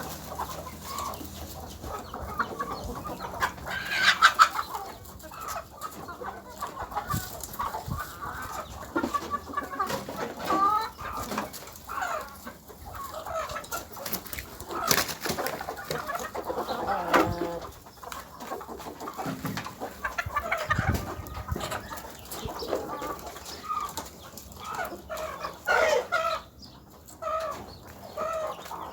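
A flock of chickens clucking and calling continuously, many short overlapping calls with a few louder squawks, with sharp clicks and taps mixed in.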